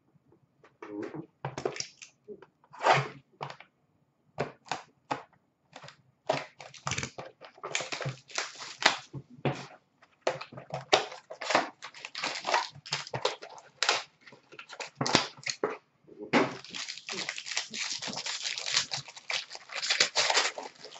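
Hockey card box and foil pack wrapper being torn open and handled, a run of short tearing and crinkling noises that come thick and fast in the last few seconds.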